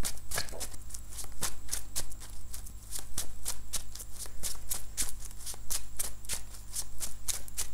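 A tarot deck being shuffled by hand, the cards slapping against each other in a quick, steady rhythm of about four a second.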